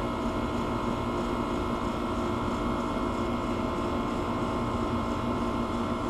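Air conditioner running with a steady hum and a few steady tones over an even drone.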